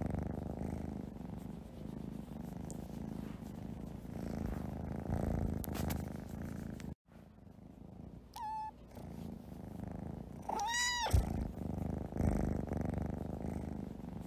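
Domestic cat purring steadily, with a short meow about eight seconds in and a louder meow, rising then falling in pitch, a couple of seconds later.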